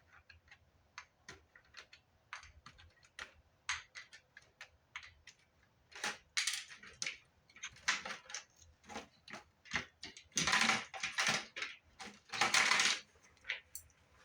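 Irregular small clicks and taps of plastic parts and buttons being handled inside an opened Fostex MR-8 multitrack recorder. Near the end come two longer, louder scraping rustles.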